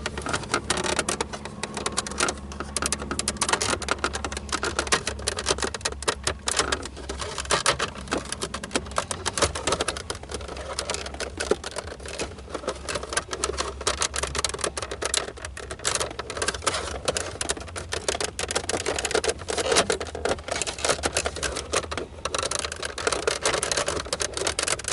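A small screwdriver working at the plastic center console trim of a Jeep Cherokee XJ: a dense, irregular run of rapid clicks and rattles of plastic and metal. A steady low hum sits underneath.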